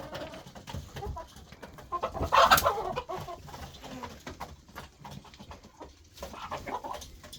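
A flock of chickens clucking, loudest about two and a half seconds in.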